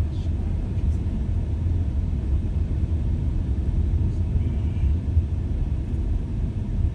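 Steady low rumble of a car driving, road and engine noise heard inside the cabin.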